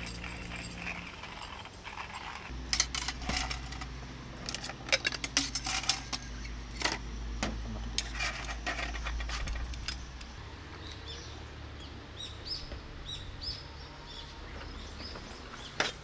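Ice cubes and stainless steel camp mugs clinking, a run of sharp clinks over several seconds. In the second half a bird chirps repeatedly.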